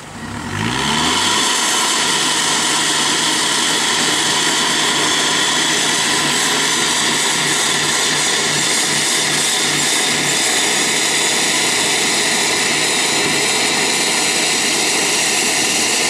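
Toyota Hilux pickup's engine revving up in the first second and then held at high revs while its tyres spin in mud and water, churning through a muddy creek crossing. The sound stays loud and steady until the end.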